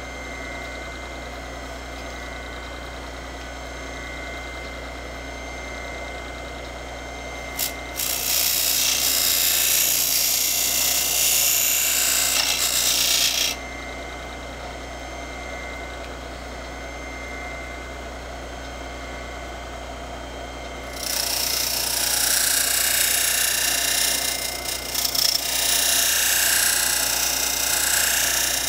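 Bench buffing machine running steadily with a hum and a thin whine as a potato peeler's steel blade is pressed against its spinning fiber wheel to sharpen the edge. Each pass is a loud, high hissing rasp. The first starts about eight seconds in and lasts about five seconds. The second starts about twenty seconds in and runs about eight seconds, with a brief break partway through.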